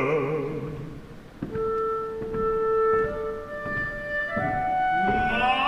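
Opera orchestra in a soft passage: woodwinds hold long steady notes, then climb in a rising phrase. A bass voice's held note ends at the start, and a singer's voice enters near the end.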